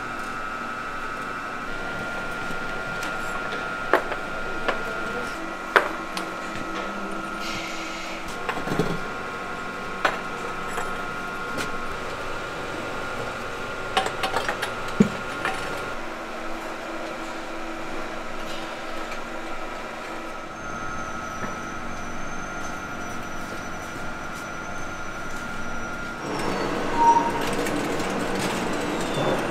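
Ceramic kiln shelves and clay pots knocking and clinking as they are set in place on a kiln car, a handful of sharp knocks over a steady factory hum with a high whine. Near the end the hum gives way to a louder rumble.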